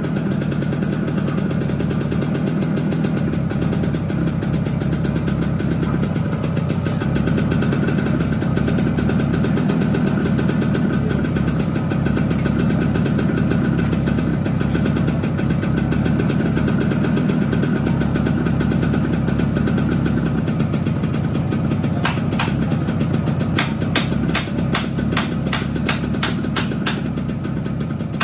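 Yamaha RX-King two-stroke single-cylinder engine running steadily through its exhaust with the deep, raspy 'ngorok' (snoring) note, freshly ported and bored oversize and breathing through a ngorok exhaust filter. From about two-thirds of the way in, a quick run of sharp pops or ticks rides over the engine note.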